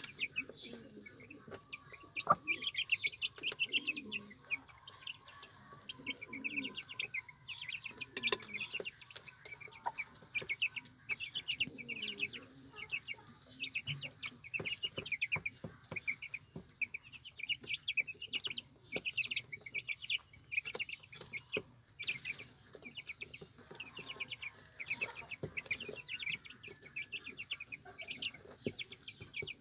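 Herati hen with her chicks: the chicks peep continuously in quick runs of short high chirps, while the hen clucks low now and then. Sharp taps come as the birds peck at feed on the floor.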